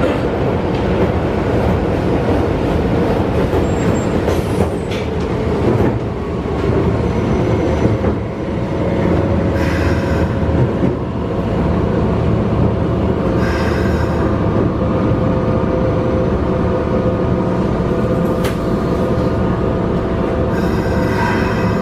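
Running noise of a Keisei 3400 series field-chopper electric train heard inside the car as it slows into a station: steady rumble of wheels and motors, with steady whining tones from about halfway and a few brief brake and wheel hisses.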